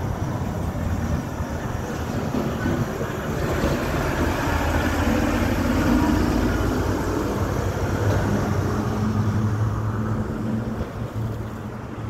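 Street traffic: a motor vehicle passing, its engine and road noise swelling to a peak about halfway through and fading near the end, with a low steady engine hum in the later part.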